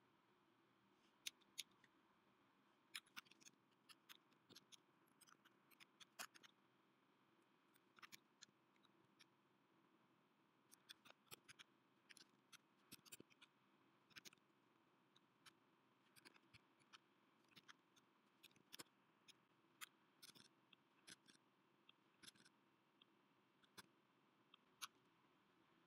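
Faint, irregular clicks of a computer keyboard being typed on, single keystrokes spaced unevenly with brief clusters.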